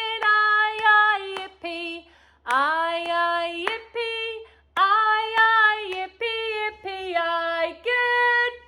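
A woman singing unaccompanied: a simple children's goodbye song, held notes in short phrases with brief breaks between them.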